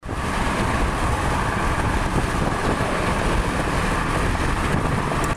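Steady highway traffic noise: cars passing at speed, with tyre roar on the road surface.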